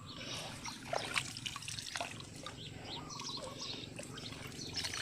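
Faint water dripping and trickling, in small scattered drips.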